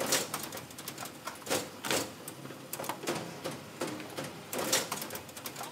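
Watkiss PowerSquare 200 bookmaking machine running, its book stacker taking in finished books: a run of uneven mechanical clacks and clicks, a couple each second.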